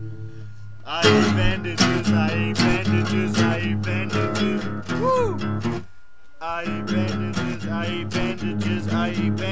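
Acoustic guitar strummed in steady chords, starting about a second in, with a short break about six seconds in before the strumming goes on.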